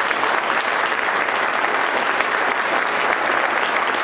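Audience applauding: steady clapping from many hands in a large room.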